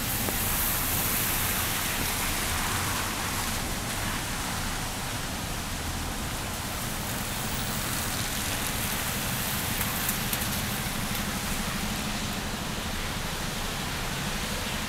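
Steady rain hiss mixed with traffic noise on a wet city street: an even wash of noise with no distinct events, a little louder in the first few seconds.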